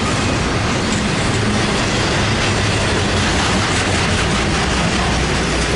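Intermodal freight cars of a CSX train rolling past close by, double-stack container well cars and trailer flatcars: a loud, steady noise of steel wheels running on the rails.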